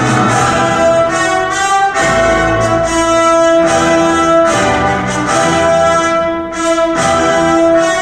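Orchestral music with brass playing long held chords that change about once a second, played loud through a large multi-way horn loudspeaker system in a big hall.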